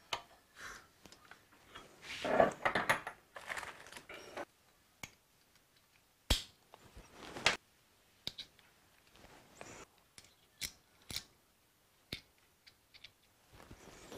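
Light metal clicks and scrapes of a feeler gauge being slid between the cam and valve shim of a Yamaha XS1100 cylinder head, checking valve clearance. They come in scattered taps, busiest about two to three seconds in, with a couple of sharp single clicks later.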